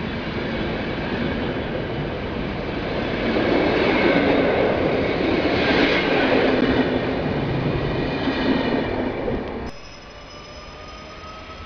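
Intercity passenger coaches rolling past along the platform, with steady wheel-on-rail noise and wheels squealing, loudest midway. Near the end, after an abrupt drop, a quieter Regio electric train with a thin, slowly rising whine.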